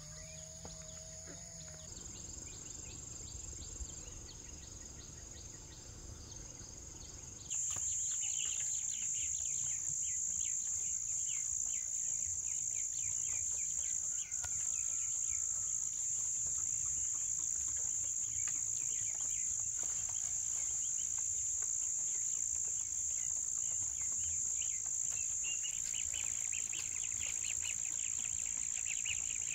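Steady, high-pitched chorus of insects, with a fine rapid pulsing underneath. It becomes suddenly louder about seven seconds in.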